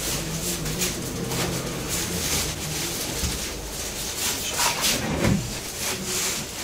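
Thin baked flatbreads rustling and flapping as they are lifted and laid on a wooden slatted rack, over a steady low hum.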